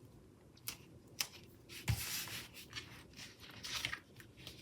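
A paper sticker being peeled from its backing sheet and pressed and rubbed down onto a planner page: a few light clicks and taps, then soft crackly rubbing.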